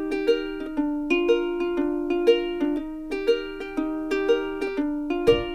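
Background music of plucked string notes in a light, steady rhythm.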